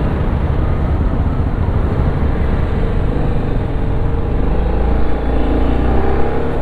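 TVS Apache RR310's single-cylinder engine running as the motorcycle is ridden away, its note rising steadily over the last few seconds as it accelerates.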